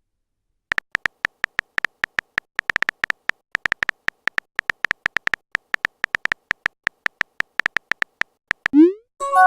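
A fast, uneven run of short electronic beeps, all at one high pitch, several a second, starting just under a second in.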